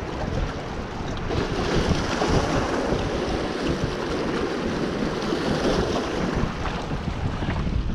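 Wind buffeting the microphone over the rush of fast-flowing canal water splashing against a rocky bank.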